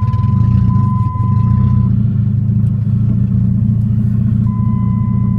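2001 Dodge Neon's 2.0-litre four-cylinder engine running steadily just after catching, started with its relay bypassed around a broken wire. A steady high beep sounds for about the first two seconds and comes back near the end.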